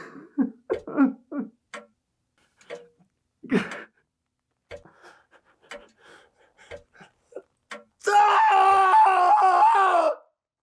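A man groaning and gasping in short, broken bursts, then a loud, wavering scream about eight seconds in that cuts off roughly two seconds later.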